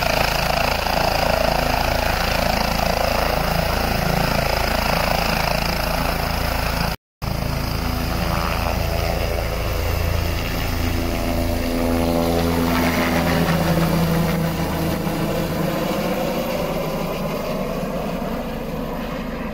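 Helicopter running close by, its rotor and engine noise steady, then sweeping in pitch as it lifts off and starts to move away, growing slowly fainter near the end. The sound cuts out for a moment about seven seconds in.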